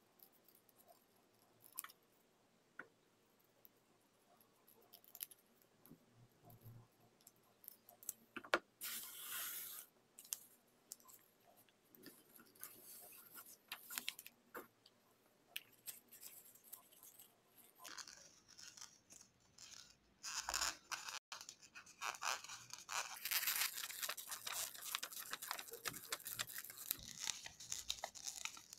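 Sheets of origami paper being handled: scattered soft taps and short rustles. From about two-thirds of the way through comes a dense, crackly paper crinkling as a sheet is rolled tightly around a thin stick.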